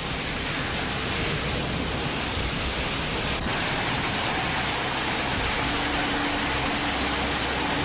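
Steady, dense hiss of a heavy storm. About three and a half seconds in it cuts to a hailstorm: the steady rush of hail falling on a street and lawn, with a faint hum near the end.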